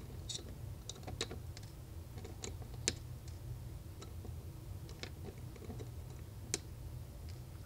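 Flush cutters snipping the excess component leads on the back of a soldered circuit board: about a dozen sharp clicks at irregular intervals, two of them louder than the rest.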